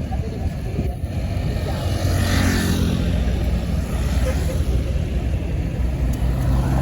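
Tour bus engine running with a low, steady hum, and a rush of passing-vehicle noise that swells and fades about two to three seconds in.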